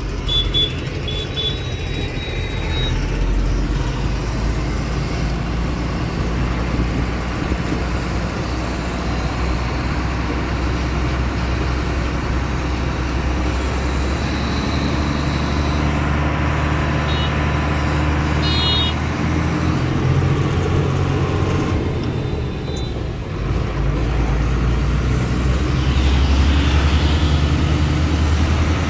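Diesel truck engine running as the truck pulls away in low gear and drives on through traffic. The engine note shifts up and down a few times.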